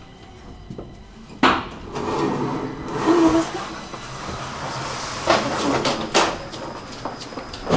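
Stockholm metro train pulling into the station: a rising rumble with several loud clanks, the first about one and a half seconds in.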